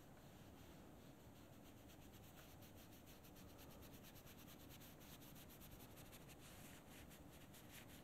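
Very faint scratchy rubbing of a Chinese ink brush scrubbed across paper in many short strokes: a nearly dry, thick-ink brush laying down dry-brush texture.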